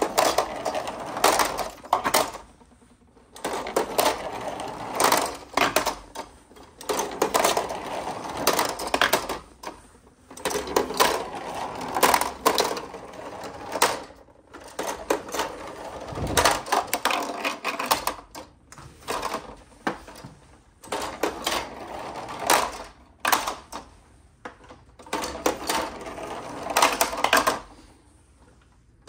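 Plastic balls rolling and rattling down the plastic spiral chutes of a marble-run tower, clicking as they drop from one spiral to the next. It comes in repeated runs of a second or two with short pauses between.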